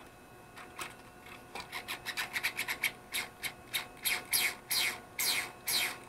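A small metal tool scraping the plastic gear cover of a toy quadcopter's motor pod in short repeated strokes. The strokes come faster about a second and a half in, then turn into a handful of longer, louder scrapes over the last three seconds. The gear cover is being worked because it rubs on the gear and causes friction.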